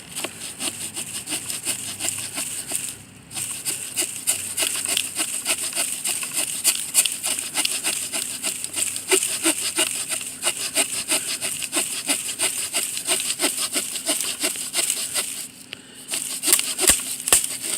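The saw blade of a Victorinox RangerWood 55 pocket knife sawing through a piece of wood in quick back-and-forth strokes, with a short pause about three seconds in and another near the end, finishing the cut.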